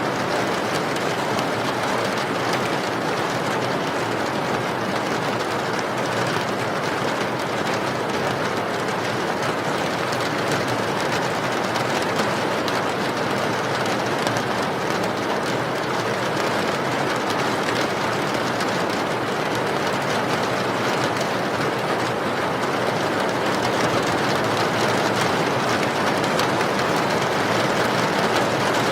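Steady rain falling, an even hiss with no let-up, growing slightly louder near the end.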